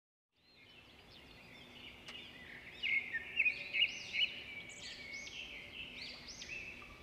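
Small birds chirping, a run of short high rising-and-falling calls that grows loudest around three to four seconds in and then thins out.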